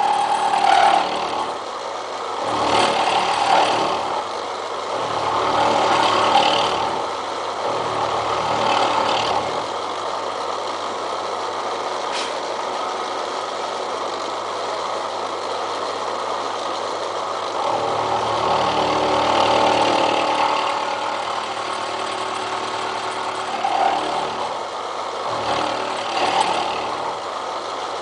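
Milling machine running with its cutter taking passes in railroad rail steel. The cutting noise swells and eases every few seconds, with a steadier stretch in the middle.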